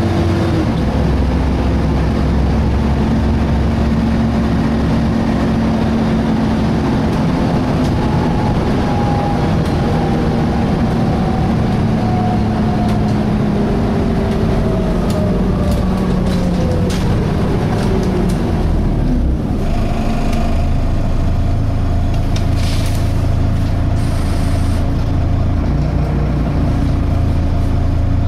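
Volvo B7TL bus's six-cylinder diesel engine running, heard from inside the bus. A whine falls steadily in pitch over about ten seconds in the middle, then the engine settles into steady running. A brief hiss comes near the end.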